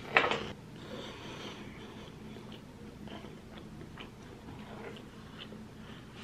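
Person slurping a forkful of cheesy spicy Korean noodles into the mouth just after the start, then chewing them, with soft wet mouth sounds and small scattered clicks.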